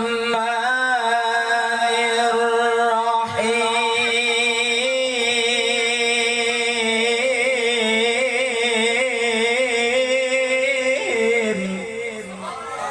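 A Quran reciter holding long, ornamented melodic notes in drawn-out tajwid recitation, the voice wavering on one sustained pitch, shifting pitch near the end.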